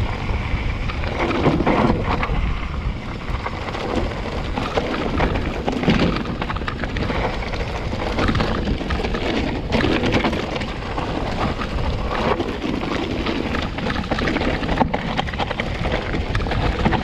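Orange Four full-suspension mountain bike riding down a rough, rocky path: a continuous clatter of tyres crunching and knocking over stones, with many sharp knocks from the bike jolting over rocks and ditches.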